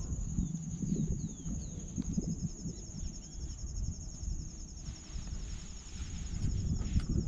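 Insects trilling steadily at a high pitch, with a fast pulsing second trill, and a few short downward-sweeping bird chirps in the first few seconds. Under them is an irregular low rumbling on the microphone, the loudest sound.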